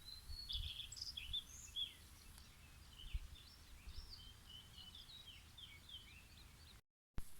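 Faint outdoor birdsong: many small birds chirping and warbling in short, overlapping phrases, over a low rumble. The sound cuts out briefly near the end.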